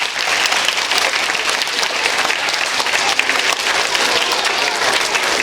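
A hall full of schoolchildren applauding steadily: many hands clapping at once.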